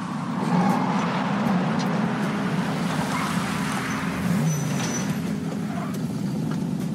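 Cars approaching and pulling up, engines running steadily.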